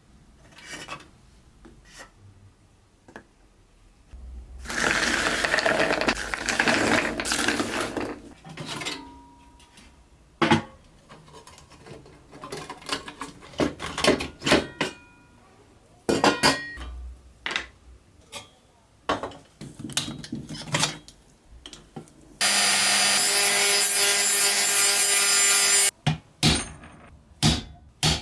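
Tools working on a rusted metal toy truck as it is taken apart: scattered clicks, knocks and scrapes of metal parts, a few seconds of loud rough scraping about five seconds in, and a power tool running steadily for a few seconds near the end.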